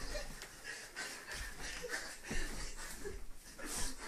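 Two people scuffling on a bed: rustling bedding and clothes, a few dull bumps, and short snatches of laughter and breathing.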